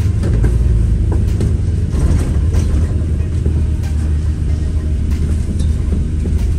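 Interior of a moving London bus: a steady low engine and road rumble, with scattered short rattles and knocks from the body.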